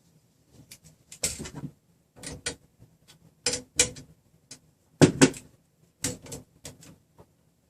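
Short clusters of sharp metallic clicks and knocks, about five bursts, from tools and parts being handled on the printer's threaded-rod frame while the Y-axis rods are tightened and positioned.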